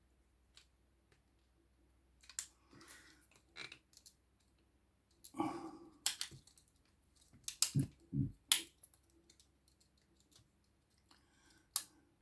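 Scattered small clicks and taps of a phone repair: tools and small parts being handled while an iPhone home button is fitted to a tester screen. A few of the taps, about two-thirds of the way through, are heavier knocks.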